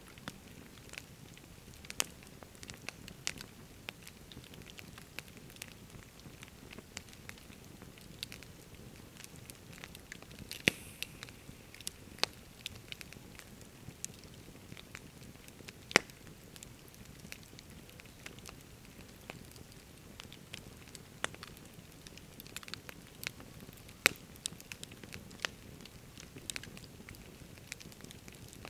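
Wood campfire of split logs burning, crackling with irregular sharp pops, a few much louder than the rest, over a soft, steady low background noise.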